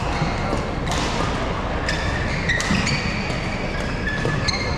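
Badminton rally on an indoor court: rackets striking the shuttlecock with sharp cracks and court shoes squeaking on the floor, over steady hall noise.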